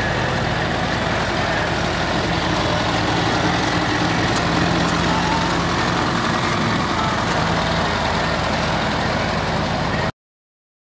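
McCormick Farmall Cub tractor's four-cylinder flathead engine running steadily at low speed as the tractor drives slowly past, then cutting off suddenly near the end.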